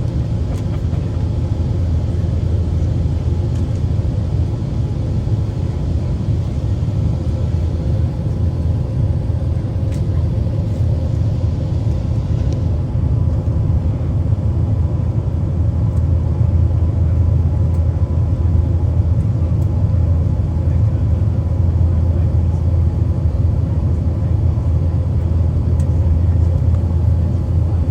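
Steady low rumble of cabin noise inside an Airbus A380 in flight: engine and airflow noise heard through the fuselage.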